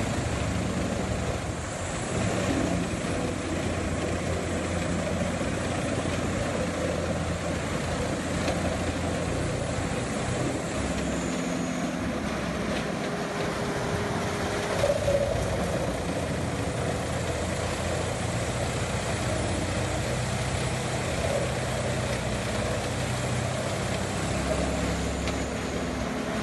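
Large wood chipper running under load as logs are fed in: a steady engine drone mixed with the noise of wood being shredded, with a brief louder crunch about halfway through.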